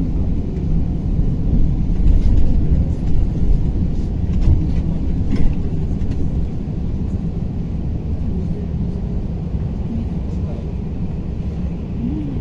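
Cabin noise inside a moving KamAZ-6282 electric bus: a steady low rumble of tyres and road, with a few light knocks and rattles in the first half.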